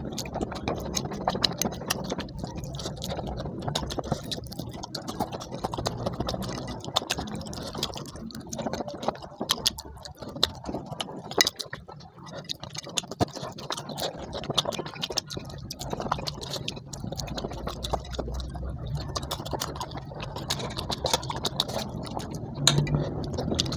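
Eating sounds up close: a man chewing rice and fried fish, with wet mouth sounds and many small sharp clicks of his fingers and a spoon against a ceramic plate.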